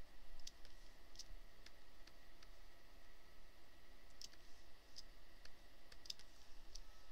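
Light, sharp clicks at an uneven pace, roughly two a second and sometimes in quick pairs, as points of a lasso selection are set one by one in Photoshop. A faint steady hum lies underneath.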